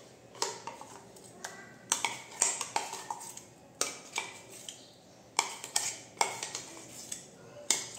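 Metal spoon scraping and clinking against a stainless steel mixer-grinder jar and steel bowl while ground lentil paste is scooped out: about a dozen irregular clinks and scrapes, some with a short metallic ring.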